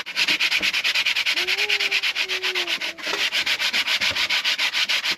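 Coarse 60-grit sandpaper rubbed back and forth over a cherry-wood photo frame, in rapid, even rasping strokes with a brief pause about three seconds in.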